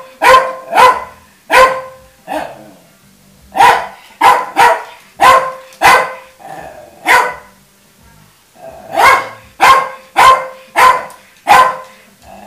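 Jack Russell terrier barking repeatedly at a lit jack-o'-lantern: sharp single barks, one or two a second, with a short lull a little after the middle before the barking picks up again.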